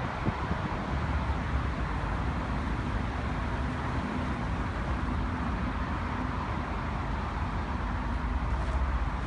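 Steady low rumble of engines in the surroundings, with a faint hum in the middle.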